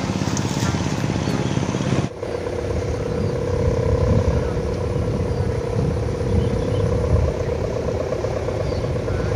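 Sendaren kite hummer on a large flying kite droning in the wind: a steady buzzing tone, with wind noise on the microphone. The sound dips briefly about two seconds in.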